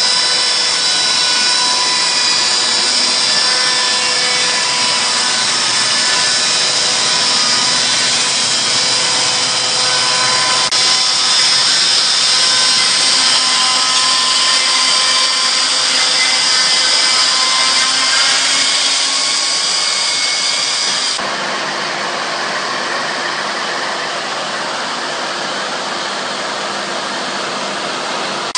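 A 10 hp electric chainsaw mill ripping a pine log lengthwise: a loud, steady whine of motor and chain over the noise of the cut. About two-thirds of the way through, the sound shifts suddenly to a slightly quieter, hissier tone.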